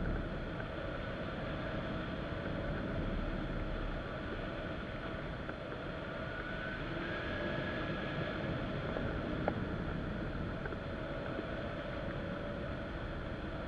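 Steady rush of wind over a camera mounted on a hang glider's wing in flight, with one light click about two-thirds of the way through.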